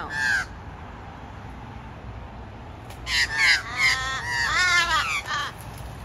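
Crows cawing as they mob a barn owl: one short call at the start, then a string of loud caws, mostly falling in pitch, from about three seconds in.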